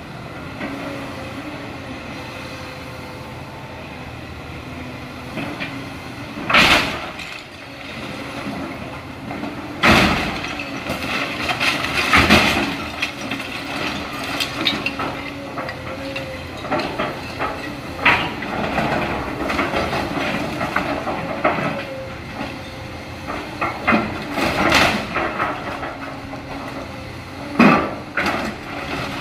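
Komatsu tracked excavator's diesel engine and hydraulics running steadily as its bucket tears into a wooden building. Timber and debris break and fall in a series of sharp crashes, the loudest about seven and ten seconds in and just before the end.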